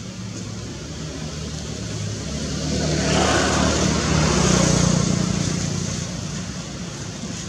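A motor vehicle passing by: engine and road noise swell from about two seconds in, are loudest in the middle, and fade toward the end.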